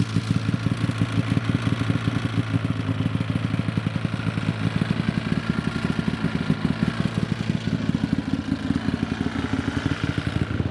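Snowmobile engine running steadily, a fast even pulsing drone with no revving.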